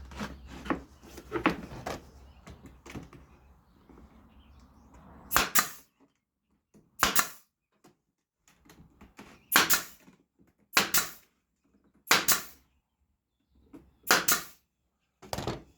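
Pneumatic brad nailer firing about seven times over the second half, each shot a short sharp burst with a hiss of air. Light handling clicks and knocks come before the shots.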